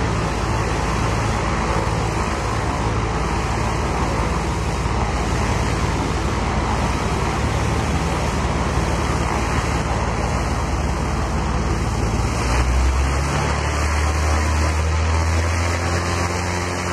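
Approaching aircraft on final approach: a steady engine drone under a constant rush of noise, with a deeper hum coming in about twelve seconds in and holding as it nears.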